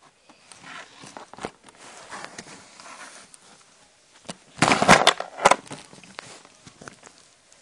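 Handling noise from the camera being picked up and moved about on a tabletop: irregular rustling and scraping, with a loud cluster of knocks and scrapes about halfway through.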